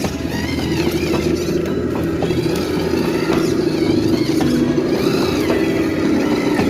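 Electric motor and gearbox of an RC off-road crawler truck whining as it drives, the pitch rising and falling with the throttle, with a few small clicks.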